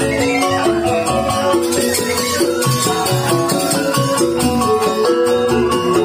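Live joged bumbung gamelan music: bamboo xylophones playing a quick run of short melodic notes over a steady pulse of kendang hand drums.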